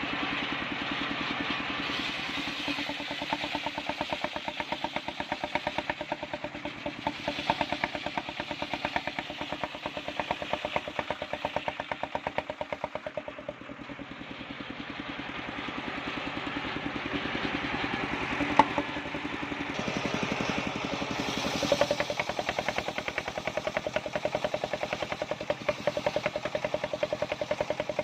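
The engine driving a mobile circular sawmill running steadily, its firing heard as a fast, even pulse. There is one sharp click about two-thirds of the way through.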